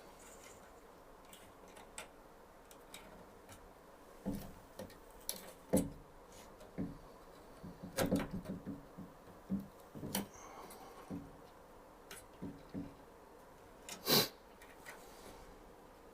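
Irregular clicks and taps of network cable wires being handled and punched down onto a 110 punch-down panel, with one louder sharp snap about fourteen seconds in.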